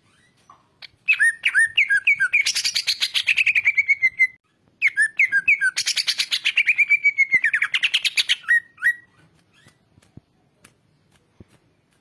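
Caged cucak ijo (green leafbird) singing two loud song phrases. Each opens with a few short hooked whistles and runs into a fast trill that falls in pitch. There is a short break between the two phrases, and the song stops a few seconds before the end.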